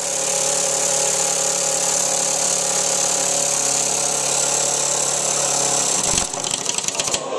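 Small student-built compressed-air engine run flat out on shop air from a hose: a loud steady hiss of air with an even machine hum. About six seconds in the air is cut and the engine spins down with a quick run of ticks.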